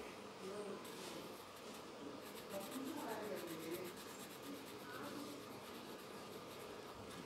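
Graphite pencil scratching on paper in short, rapid back-and-forth strokes as small spots are shaded in, faint.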